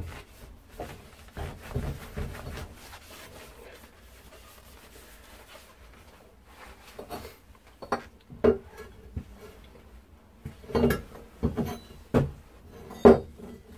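Cotton rag rubbing and wiping along freshly soldered copper pipe in irregular strokes. In the second half come several sharp knocks as the pipe is handled against the wooden bench.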